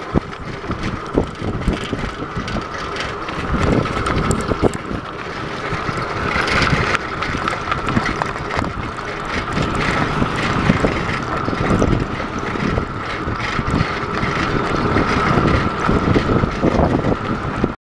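Wind buffeting the microphone of a camera on a moving bicycle, with road and traffic noise and a steady thin tone underneath. The sound cuts off suddenly just before the end.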